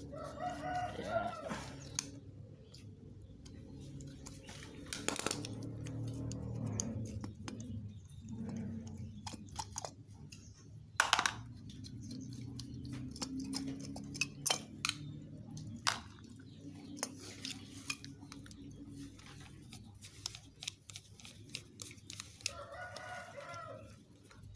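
A rooster crows twice, once at the start and again near the end. In between come sharp metallic clicks and knocks as the bolts of an old carburetor body are worked loose.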